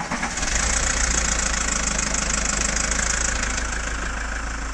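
Iveco Daily van's diesel engine catching quickly in the first moment and then idling steadily. It is running on a freshly fitted 100 Ah battery, and the start comes promptly.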